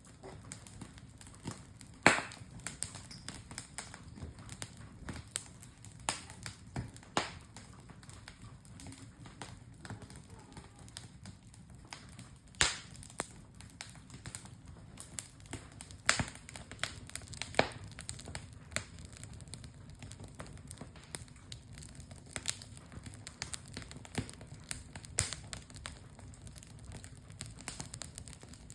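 Wood campfire crackling, with irregular sharp pops scattered throughout; the loudest pop comes about two seconds in.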